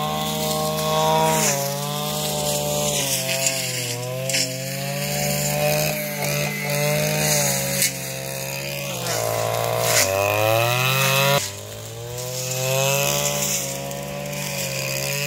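Small engine of a motorised grass cutter running at high revs, its pitch rising and falling as it works through the grass, easing off briefly about eleven seconds in before revving up again.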